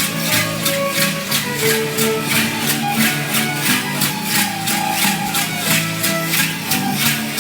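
Mexican folk dance music on violin and guitar: a tune of held notes over a steady beat of about four strokes a second.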